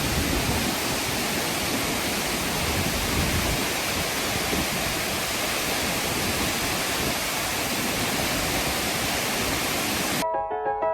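Waterfall: a steady, dense rush of falling water. About ten seconds in it cuts off abruptly and piano music starts.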